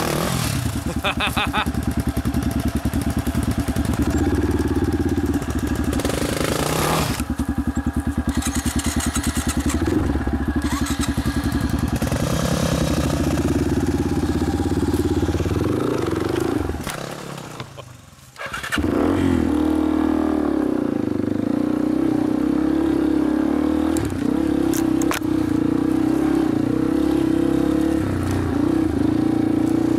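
Off-road dirt bike engine running at low revs under the rider, then fading almost to nothing about seventeen seconds in and firing back up abruptly a second or so later, then running steadily again.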